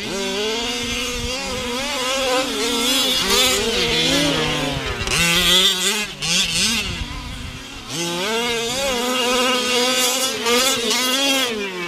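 Losi 5ive-T 1/5-scale RC truck's 23cc two-stroke petrol engine revving up and down under throttle as it is driven, its pitch rising and falling over and over. It drops back briefly twice, about halfway through and again a few seconds later.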